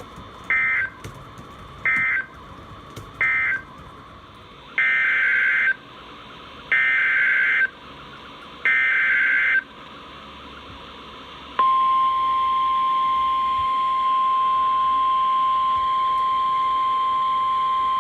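NOAA Weather Radio Emergency Alert System signalling. Three short SAME digital data bursts close the previous alert, then three longer data bursts carry the header of the next alert. About two-thirds of the way in, the steady 1050 Hz warning alarm tone begins and holds.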